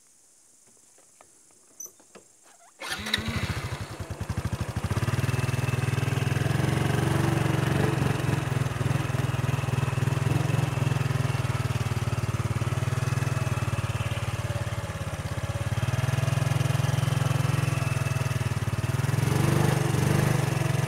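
A small motorcycle engine starts about three seconds in, firing unevenly at first and then settling into a steady run.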